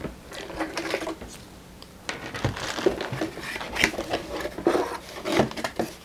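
Cardboard packaging inserts in a box being handled and lifted: rubbing, scraping and light knocks, busiest in the second half.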